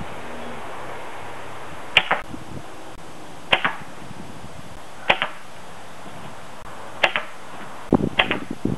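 Arrows shot from a Hoyt Razortec compound bow hitting a layered-foam Block target: five sharp thwacks spaced one to two seconds apart.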